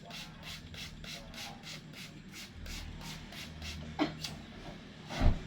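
Rhythmic rubbing strokes, roughly four to five a second, as of hands rubbing over skin. A short falling squeak comes about four seconds in, and a loud thump comes near the end.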